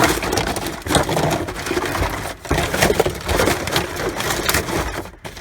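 Crunching and clattering of aluminum cans and packaging being rummaged through in a rubbish bin, with many irregular knocks.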